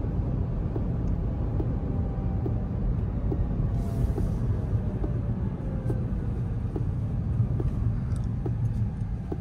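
Road and tyre rumble inside a Rivian R1T's cabin as the truck slows, with a faint electric drive-motor whine falling in pitch. The turn signal ticks steadily, about once a second.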